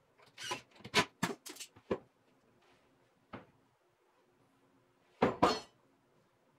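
Plywood knocking and clacking as a folding plywood shelf unit is hooked onto a wooden wall cleat and its hinged parts are swung. A quick run of knocks comes in the first two seconds, one knock follows, and a louder double clack comes about five seconds in.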